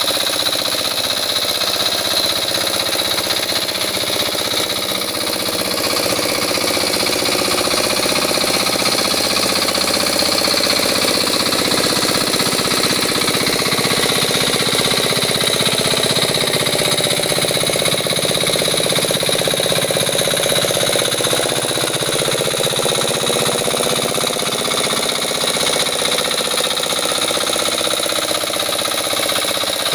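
Hand tractor's small engine running steadily under load as it drags cage wheels and a harrow through paddy mud.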